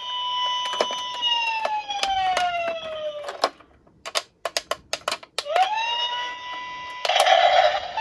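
Battery-powered toy police car's electronic siren sound effect. It wails on one pitch, slowly winds down and cuts off, then comes several sharp clicks as the buttons on its roof are pressed. The siren then winds back up and holds, and another electronic sound effect starts near the end.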